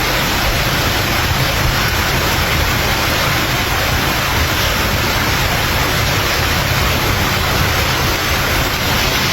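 Steady, even hiss-like noise with no distinct strokes or knocks.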